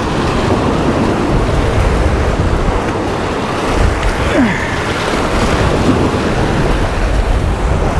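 Rough surf washing and breaking against a rock jetty, with wind rumbling on the microphone: a loud, steady wash of noise.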